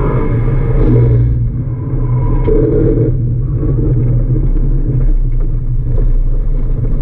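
Subaru Impreza WRX's turbocharged flat-four engine heard from inside the cabin under driving load, a low steady drone that eases off briefly about a second and a half in and then picks up again.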